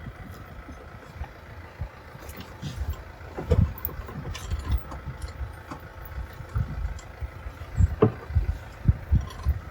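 Diesel engine of the farm equipment idling steadily, with scattered low thumps and knocks.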